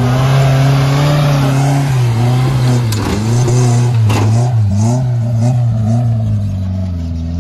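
Engine of a small off-road 4x4 revving hard as it pulls through deep mud, the revs rising and falling again and again, most busily in the middle seconds.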